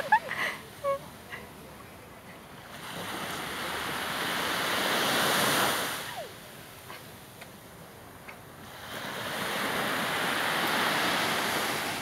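Sea waves breaking on a sandy beach: two waves, each a rush of surf that swells for a few seconds and dies away, about six seconds apart. A couple of short high sounds in the first second.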